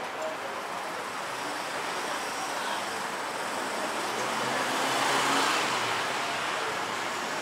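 Street traffic noise, swelling about five seconds in as a motor scooter passes close by.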